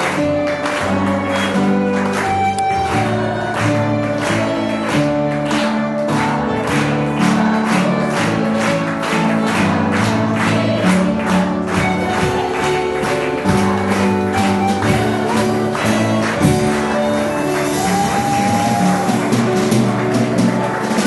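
Live piano and violin playing a lively tune, with guests clapping along in time, about two to three claps a second.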